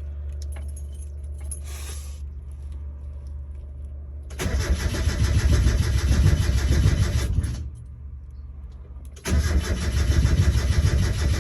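Starter cranking a 1992 Mazda Miata's four-cylinder engine in two bursts of about three seconds each, starting about four seconds in and again near the end. The cranking is powered through a broken engine ground cable that is barely touching.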